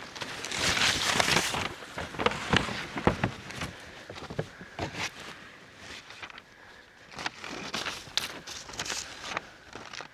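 Footsteps on rough ground, with irregular crunches and rustling. They are loudest in the first couple of seconds.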